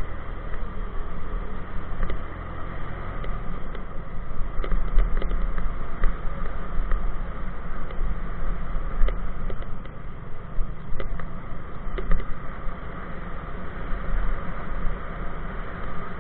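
Suzuki Gixxer 150's single-cylinder four-stroke engine running as the motorcycle rides a rough dirt track, with a heavy low rumble and scattered sharp clicks and rattles.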